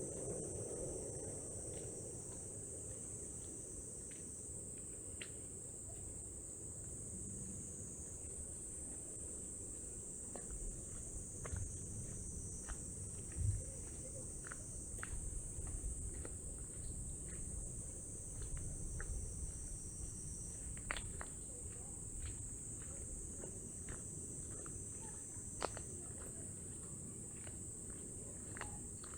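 Steady high-pitched chorus of night insects, with scattered light clicks and a low rumble beneath.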